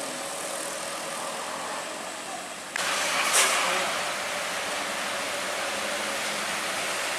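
Road traffic on a wet road: car and truck engines running slowly over a steady hiss of tyres on water. About three seconds in, the sound jumps to a louder, fuller hiss of rain and wet traffic.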